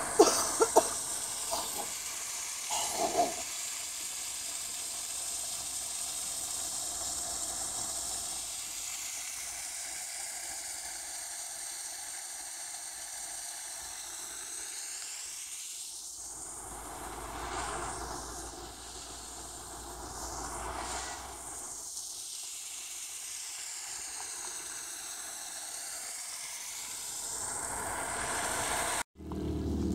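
Creek water running over small waterfalls in the rock, heard as a steady hiss. A low rumble swells and fades twice midway.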